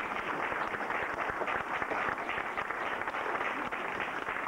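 An audience of children and adults applauding, many hands clapping in a steady, dense patter.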